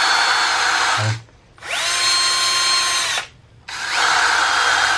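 Two Bosch 10.8 V cordless drill/drivers, the brushless GSR 10.8 V-EC and an older model, run at free speed in turn: three runs of about a second and a half each. Each spins up with a rising whine and stops quickly. The runs alternate between a more whooshing, fan-like sound and a cleaner motor whine; the whooshing, fan-like sound is the brushless motor's.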